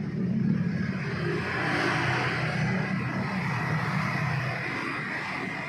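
Honda UMR 345 T brush cutter's small four-stroke engine running steadily for several seconds, a hard-to-start engine just coming back to life after carburettor adjustment.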